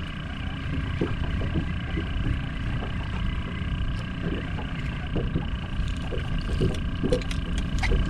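Wind rumbling on the microphone in a small open boat, with a faint steady high whine and a few soft knocks and splashes.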